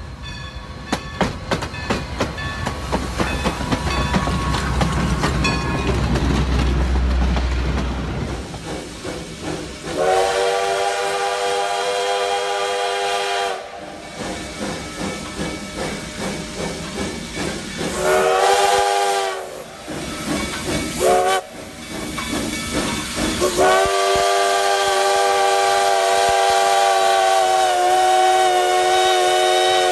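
Steam locomotive running with a rhythmic clatter and low rumble, then its multi-tone steam whistle blowing four times: a long blast, a shorter one, a brief toot and a long blast held to the end.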